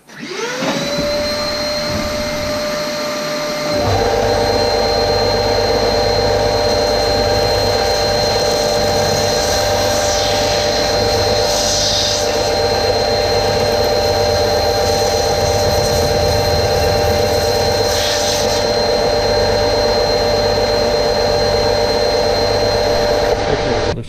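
Ryobi bench belt sander switched on, its motor spinning up to speed with a rising whine, then running steadily. About four seconds in the sound grows louder and deeper, and it goes on as a wooden workpiece is sanded against the moving belt.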